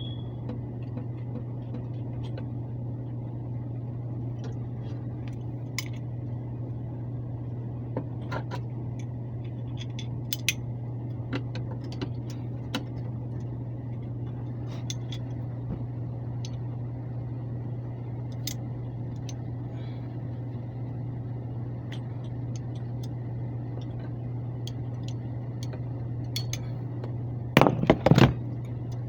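Air handler blower running with a steady low hum while hand tools and metal parts clink and tap now and then, with a short run of loud clanks near the end.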